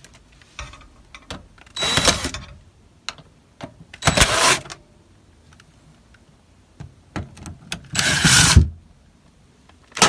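Cordless drill/driver backing the screws out of an air handler's access panel: three short motor runs a couple of seconds apart, with small clicks and knocks of the screws and panel between them.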